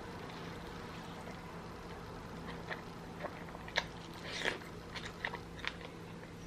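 Close-up mouth sounds of someone eating a saucy turkey leg: a run of sharp, wet smacks and chewing clicks in the second half, with one longer smacking burst, over a steady low hum.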